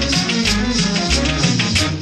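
Latin dance music with a bass line that changes note about twice a second under quick, regular percussion.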